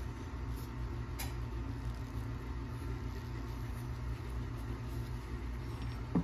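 Steady low mechanical hum, with a faint click about a second in.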